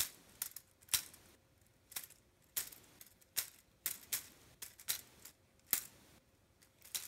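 Hard plastic Lego Bionicle pieces clicking and knocking as a built model is handled and turned, a string of sharp, irregular clicks.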